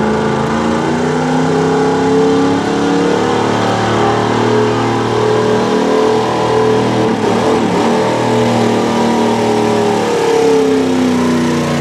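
Gasoline engine of a 1995 Ford 4x4 pickup running at high revs under heavy load while pulling a weight-transfer sled. The engine note rises and falls several times as the revs change.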